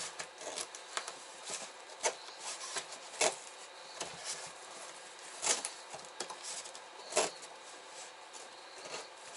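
Scissors cutting down the side of a cardboard refrigerator box: irregular snips and crunches of cardboard, the loudest about three, five and a half and seven seconds in.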